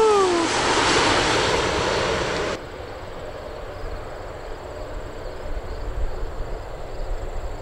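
Twin-engine business jet landing: loud jet engine noise that cuts off abruptly about two and a half seconds in, followed by a quieter, steady jet rumble with a thin high whine as the jet rolls along the runway.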